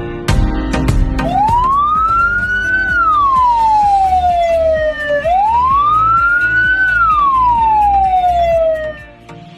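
Electronic ambulance siren sounding its wail tone: two slow cycles, each climbing quickly in pitch and then falling away slowly, with background music underneath.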